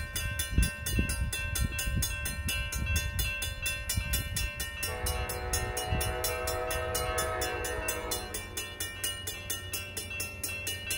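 Two railroad crossing bells, a Safetran mechanical bell and a General Signals electronic bell, ringing in a steady rapid rhythm. About five seconds in, a train horn sounds one held chord for about three and a half seconds.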